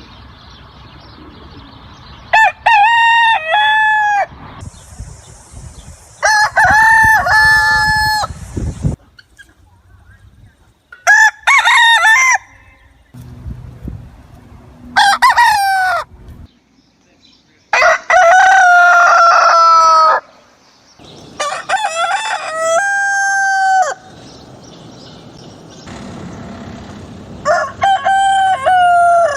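Roosters crowing, one cock-a-doodle-doo after another: about seven crows, each one to two and a half seconds long, differing in pitch and background noise from crow to crow.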